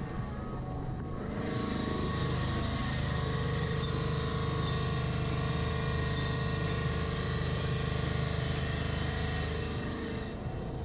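A motor or engine running steadily, coming on about a second in and dropping away near the end.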